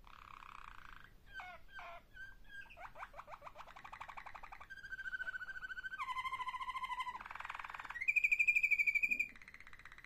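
Domestic canary singing a long, varied song of trills and held notes, changing every second or so; the loudest is a fast, high trill about eight seconds in.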